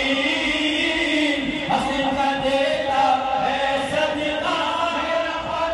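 Many voices chanting or singing a devotional refrain together, holding long wavering notes.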